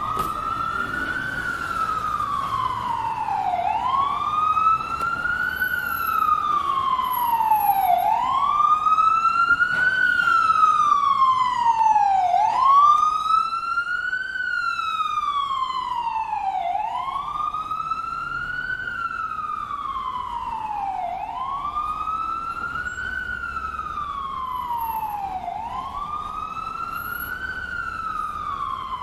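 Ambulance siren sounding a slow wail, about seven cycles. Each cycle sweeps quickly up in pitch, then falls slowly back, about every four and a half seconds, and it grows a little louder toward the middle.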